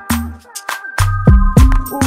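Hip-hop-style dance music: deep bass notes that slide down in pitch, sharp drum hits and held synth chords, dipping briefly about half a second in.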